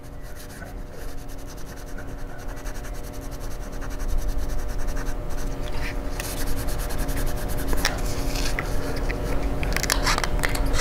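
Quick, repeated rubbing strokes of a wipe on the copper contact plate of a laptop heatsink, scrubbing off old thermal paste; the scrubbing gets louder about four seconds in.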